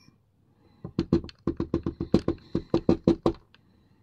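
Rapid run of about fifteen sharp metallic taps, starting about a second in and stopping shortly before the end, as the Mul-T-Lock cylinder is knocked to shake one of its pin stacks out while it is gutted.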